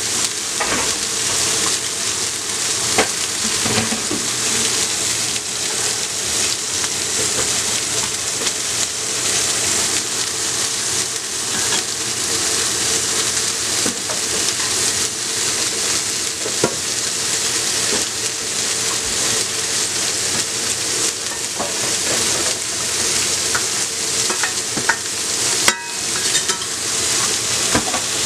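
Tomato and chile salsa sizzling steadily in a hot stainless steel pan, with a few clicks from a utensil against the pan.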